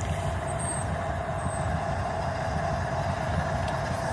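Steady low rumble of a stopped freight train, with a faint steady hum over it.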